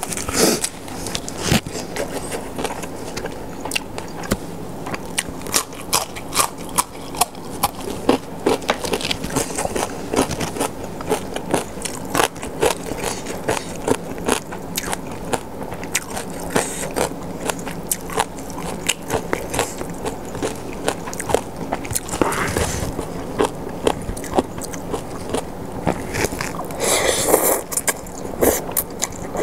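Close-miked mouth sounds of eating spicy Thai papaya salad with fresh vegetables: steady chewing with many short crunchy clicks. A noisier slurp comes near the end as rice noodles are taken in.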